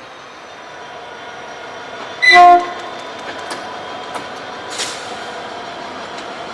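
Diesel locomotive horn sounding one short, loud blast about two seconds in, over the steady running noise of a train. A few sharp clicks of wheels over the rails follow.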